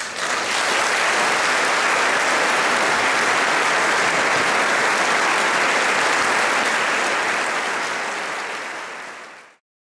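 Large audience applauding, a dense steady clapping that begins as the singing stops, fades near the end and then cuts off abruptly.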